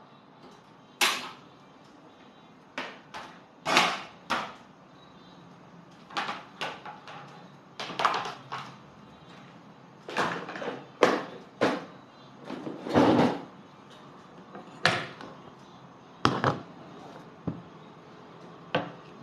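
Irregular knocks and clatters, one every second or so, from someone handling things in a home kitchen; a few are louder and ring briefly.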